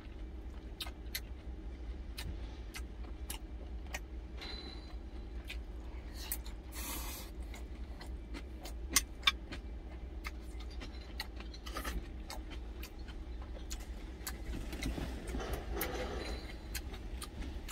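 Metal spoon clinking and scraping against a glass food container, with chewing, over a steady low hum. Two sharper clinks stand out about halfway through.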